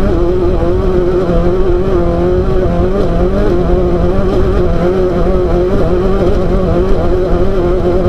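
Off-road race car's engine running at steady high revs, its pitch wavering slightly, over a constant rumbling noise.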